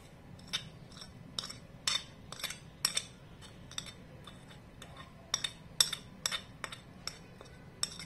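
Steel spoon clinking against a china plate as ingredients are scraped and tapped off it: about fifteen sharp, irregular clinks.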